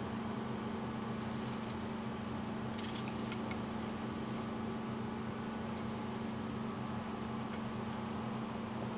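Steady low background hum, with a few faint light clicks about three seconds in as the MDF gear plate is handled.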